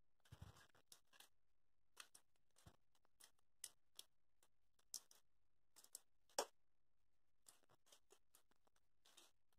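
Faint handling noises: scattered small clicks and rustles as a foam-plate model plane and its wooden stick are handled, with one sharper click about six and a half seconds in.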